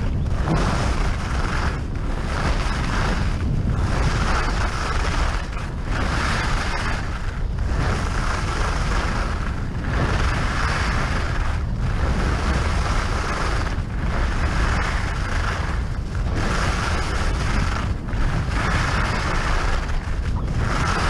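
Skis hissing and scraping over groomed piste snow at speed, easing off briefly every couple of seconds, over a steady low rumble of wind buffeting the action camera's microphone.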